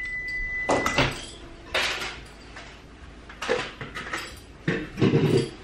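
Sipping a drink through a straw and handling the cup, heard as a few short, irregular knocks and scrapes, the loudest near the end. A faint, steady high tone stops about a second in.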